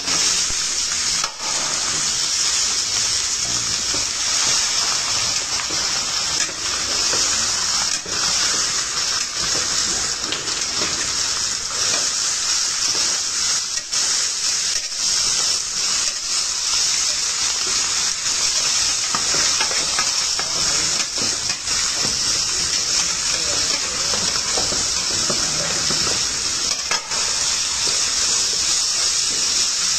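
Chunks of meat sizzling steadily in a large stainless steel pan, with the occasional scrape of a metal spatula as they are stirred.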